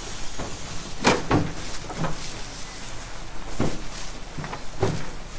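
Scattered dull thuds and rustling as mesh sacks of onions are handled and heaved onto a truck, a few knocks about a second apart.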